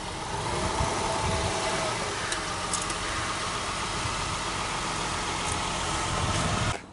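Acura CL 3.0's V6 engine running, with a faint tone that drops a little in pitch during the first couple of seconds; the sound stops abruptly near the end.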